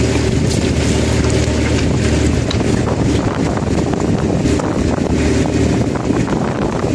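A fishing boat's engine running steadily, with wind buffeting the microphone and the light clatter of plastic eel-trap tubes being handled on deck.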